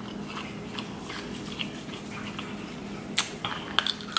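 Snow crab leg being eaten by hand: faint wet clicks of the sauce-coated shell being pulled apart, then a few sharp cracks and smacks near the end as the meat is bitten out of the shell. A steady low hum runs underneath.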